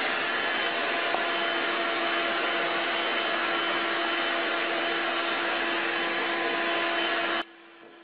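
Stick vacuum cleaner running steadily, a constant motor noise with a steady hum beneath it, as its floor head is pushed over a cat's fur. The sound cuts off sharply near the end.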